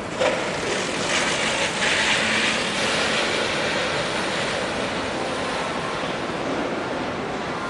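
Steady rushing background noise of a large factory hall, louder for a couple of seconds about a second in, then even.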